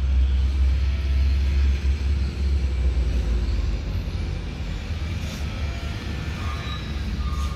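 Road traffic rumble from vehicles at a bus terminal, a steady low rumble that eases slightly in the second half.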